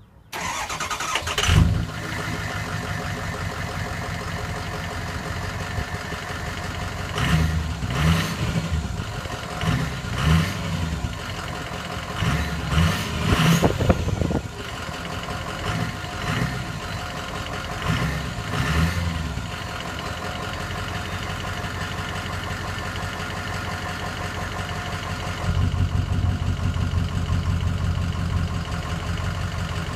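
A 2006 Ford F-350's 6.0L Power Stroke turbo-diesel V8, heard at the tailpipe, starting up with a quick flare and then idling. A run of short throttle blips comes between about 7 and 19 seconds in, and the idle gets louder about 25 seconds in.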